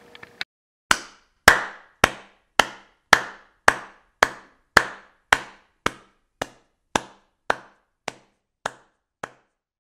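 A steady series of sharp knocks, a little under two a second, each dying away quickly, growing fainter toward the end.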